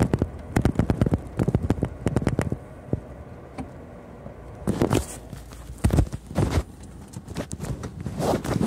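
Handling noise from a phone being carried with its lens covered: a quick run of knocks and rubbing, then a few separate thumps.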